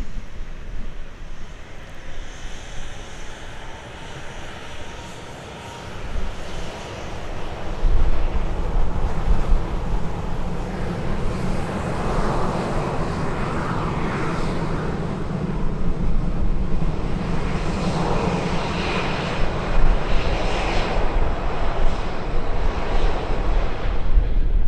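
Airliner engines roaring as a plane passes. The roar swells from about six seconds in and stays loud and steady.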